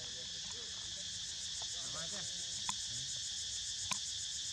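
Steady, high insect chorus with a fine pulsing texture. Two faint clicks come in the second half.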